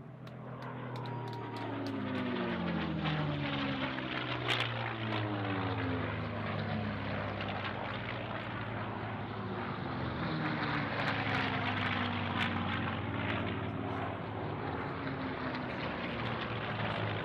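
Merlin V12 engine and propeller of a P-51 Mustang air racer at racing power, a loud steady drone. Its pitch drops as the plane passes about a second in, and drops again more slowly later. Scattered sharp pops come from the exhaust near the first pass.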